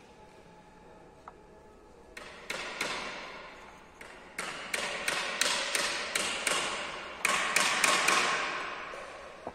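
Hollow bamboo pieces knocking against each other as they are handled and fitted together: a run of sharp wooden taps, each ringing briefly, about three a second, starting about two seconds in and loudest near the end.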